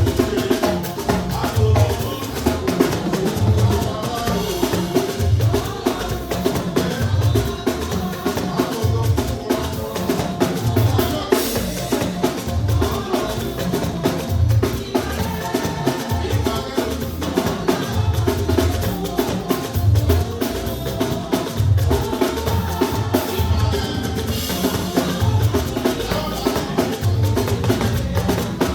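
Live band music driven by a drum kit playing a steady beat.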